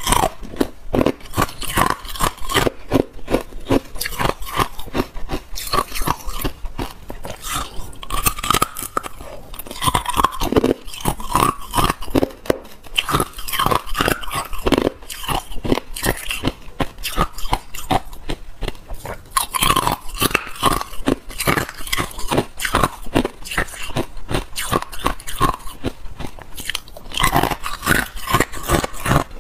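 A person biting and chewing hard ice: a dense, continuous run of sharp crunches and cracks close to the microphone.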